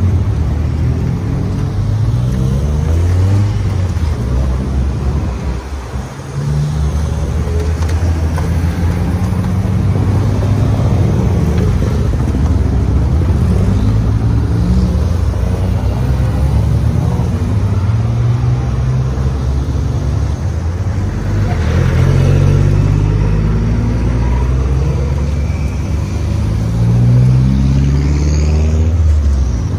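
Racing cars pulling away one after another down the pit lane, engines revving and accelerating past in a steady stream of rising engine notes. There is a brief lull about six seconds in.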